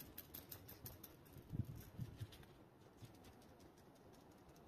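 Near silence, with faint small clicks and two soft low knocks as a fixed-blade knife is handled and drawn from its hard plastic Secure-Ex sheath.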